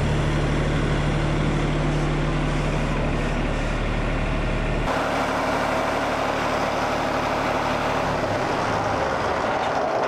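Wood-Mizer LT40 Wide sawmill's engine running steadily at idle. About five seconds in the sound changes to a rougher, less even hum, and its low tone fades out near the end.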